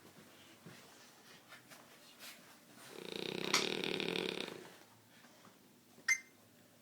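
A pet snoring: one long snore, nearly two seconds long, about three seconds in. A short sharp click near the end.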